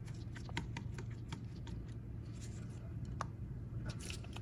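Light, irregular clicks and ticks of a small screwdriver and metal tools on a phone's frame as the last internal screws are taken out. A steady low hum runs underneath.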